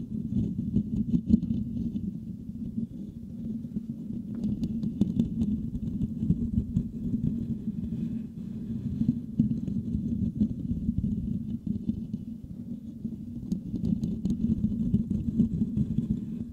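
Fingertips scratching and rubbing over the metal mesh grille of a Blue Yeti microphone, right on the capsule: a continuous, deep rumbling scratch dense with fine crackle.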